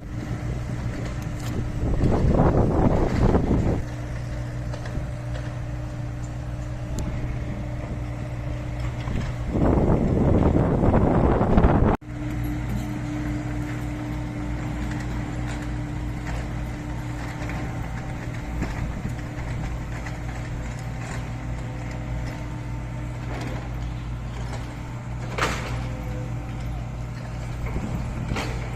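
Heavy diesel engine of construction machinery running steadily, with two louder surges of noise lasting about two seconds each, one early and one about ten seconds in.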